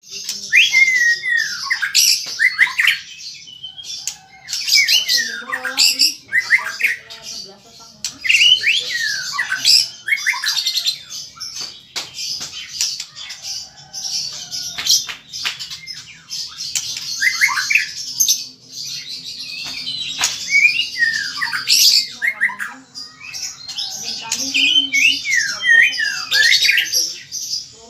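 White-rumped shama (murai batu) in full song: rapid bouts of swooping whistles mixed with harsh chattering notes and sharp clicks, broken by short pauses.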